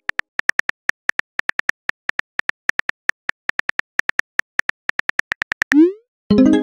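Virtual phone-keyboard tap clicks, a quick run of short ticks about seven a second as a message is typed. Near the end a short rising swoop sounds, then music begins.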